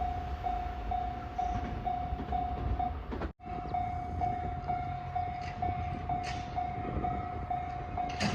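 Japanese railway level crossing's electronic warning bell ringing in a steady repeated ding, about two strikes a second, over the low rumble of a passing train. The sound cuts out for a split second a little over three seconds in.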